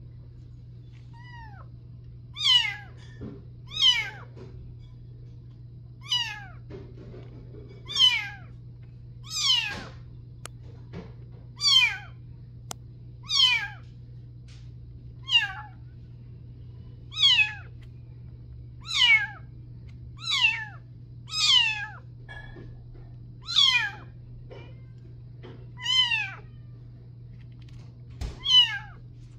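Young kitten mewing over and over, a string of about fifteen high cries that each slide down in pitch, roughly one every one and a half to two seconds. A steady low hum runs underneath.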